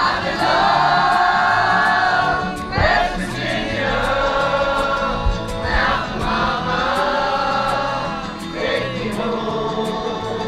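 A song with voices singing long held notes in phrases of a few seconds each, over a light, even beat.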